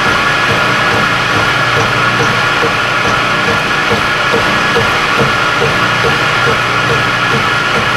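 Milling machine running steadily, a constant motor and spindle hum with a light regular tick a little over twice a second.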